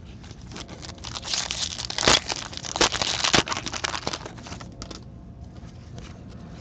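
Foil hockey card pack being torn open and crinkled by hand, a dense crackling rustle that eases off after about four and a half seconds.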